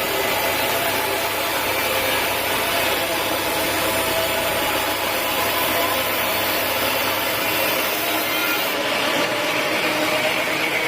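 Sawmill saw cutting through a teak log: a steady, loud rasping hiss with a held whine from the blade. The highest part of the hiss drops away near the end.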